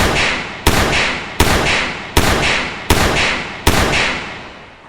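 Six gunshots fired in quick succession, about three-quarters of a second apart, each ringing out before the next.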